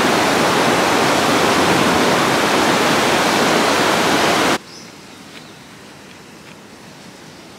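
River water rushing over a low weir: a loud, steady rush that cuts off about four and a half seconds in, leaving faint outdoor ambience.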